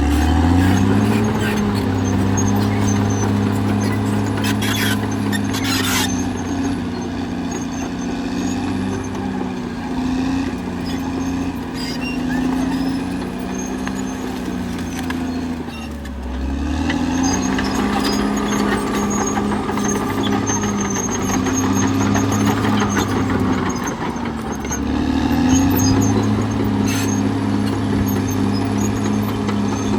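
Caterpillar D6R XL bulldozer's diesel engine running hard as it works, its pitch climbing at the start, dipping about halfway and again late on, and climbing back each time. Two short high noises come about five and six seconds in.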